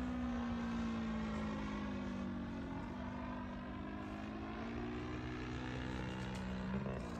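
Hangar 9 Pitts S-2B RC biplane's 50–60cc engine and propeller running in flight; the engine note slides down in pitch over the first few seconds, then climbs again.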